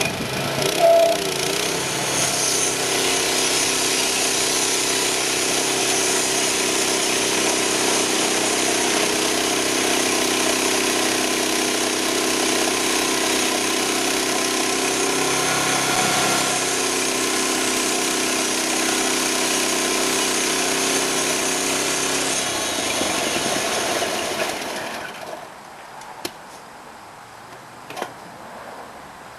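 Portable band sawmill running on its 6.5 HP Honda engine. The engine revs up from idle about a second in and then runs steadily at speed under a high, even hiss. Near the end it winds down and the sound falls away, leaving a few faint ticks.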